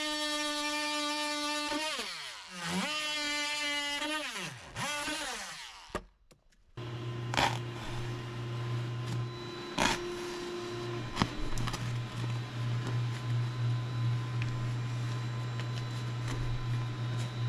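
Ryobi oscillating multi-tool running with a steady high whine against a board. About two seconds in, its pitch falls and rises twice as it slows and speeds up, then it stops. After a moment of silence there is a low steady hum with a few sharp taps.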